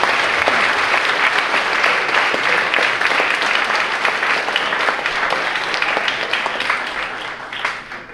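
Audience of students applauding: many hands clapping in a dense patter that dies away near the end.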